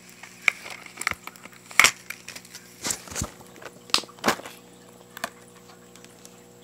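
Irregular clicks, taps and scrapes of a plastic Blu-ray case being handled close to the microphone, the loudest knocks about two and four seconds in, over a faint steady hum.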